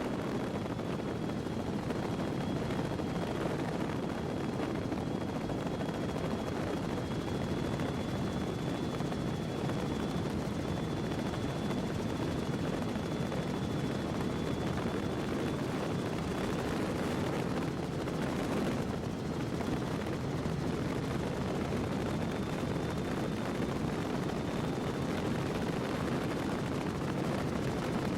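Quad Mercury Racing outboard engines running hard at speed: a steady, dense drone with a faint high whine over it.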